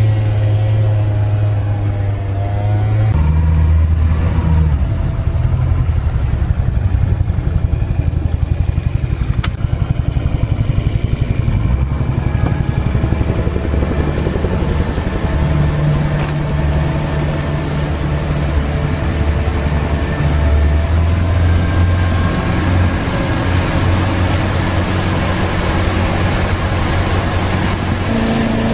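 Mercury outboard motor running on a fishing boat as it gets under way, its pitch stepping up and down a few times. A hiss of wind and rushing water builds through the second half.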